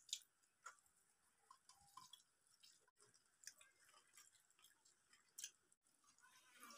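Near silence with faint, scattered small clicks and soft scrapes of people eating by hand: fingers mixing rice on steel plates, and chewing.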